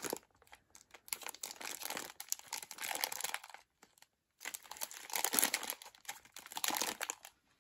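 Plastic wrapper of a four-pack of instant noodles crinkling as it is handled and turned over, in two stretches with a short pause between.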